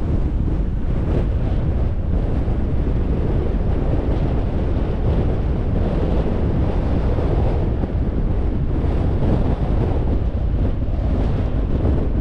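Wind buffeting the microphone: a steady, loud low rumble that flutters unevenly.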